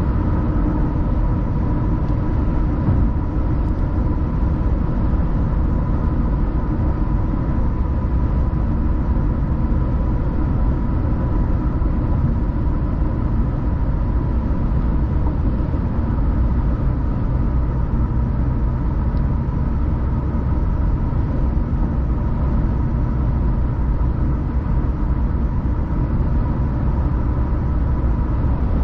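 Car driving at a steady speed: a constant low rumble of road and engine noise, with a faint steady high hum over it.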